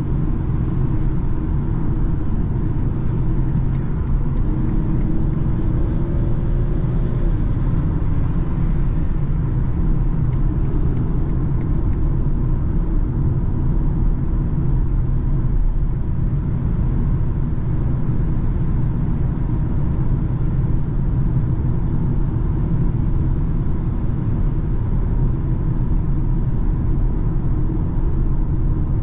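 Steady in-cabin noise of a BMW cruising at motorway speed: a low, even rumble of engine, tyres and wind that holds constant throughout.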